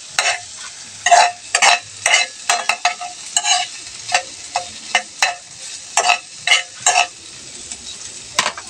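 Metal spoon scraping and clinking against a wok as okra and egg are stirred, a bit under two strokes a second, over a faint sizzle of frying. The stirring pauses briefly near the end before one last scrape.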